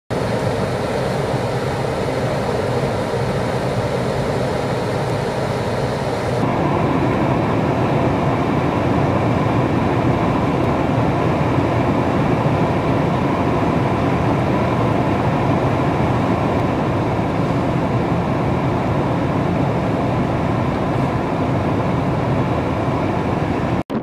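Strong blizzard wind buffeting the microphone, a loud, steady rushing noise. The sound shifts abruptly about six seconds in and drops out for an instant near the end.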